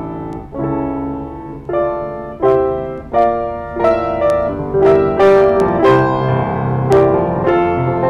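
Yamaha G3E grand piano being played: spaced, ringing chords at first, growing louder and busier with quicker notes from about halfway through.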